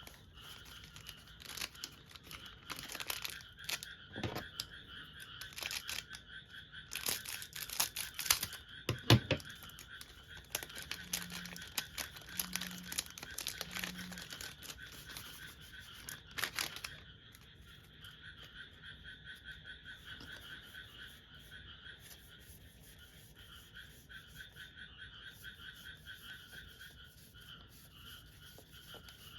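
A chorus of frogs calling steadily in fast pulsing trills. Over the first half, a card pack's foil wrapper is crinkled and torn open, loudest about eight to nine seconds in.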